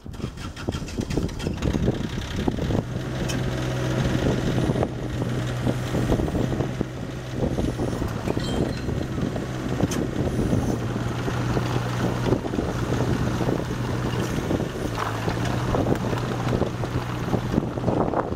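Caterpillar 301.5 mini excavator running, its diesel engine under hydraulic load as the boom and arm are raised, with a steady low hum setting in about three seconds in. Wind buffets the microphone.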